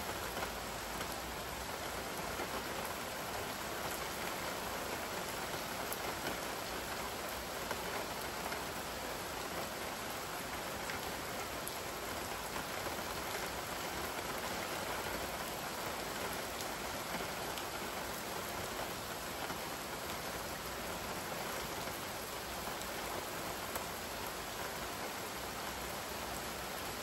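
Steady rain falling on wet ground and puddles: an even, continuous hiss with faint ticks of single drops scattered through it.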